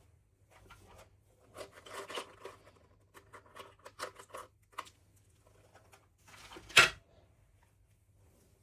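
Small objects being handled up close: a run of light clicks and rustles, then one louder rustling scrape near the end.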